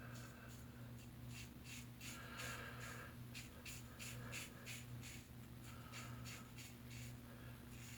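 Razor scraping through lathered stubble in short, quick strokes that come in runs, over a steady low hum.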